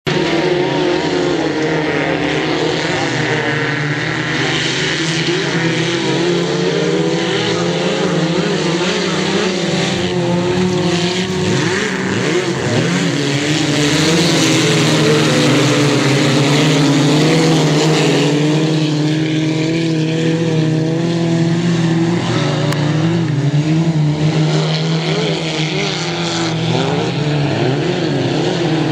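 Several autocross race cars' engines running hard at once as they race on a dirt track, their pitches rising and falling in overlapping sweeps as each accelerates, lifts off and shifts gear.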